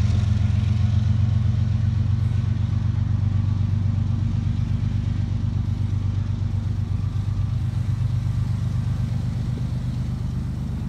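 Freight train's diesel locomotive running under power as it moves away, a steady low engine drone that slowly fades.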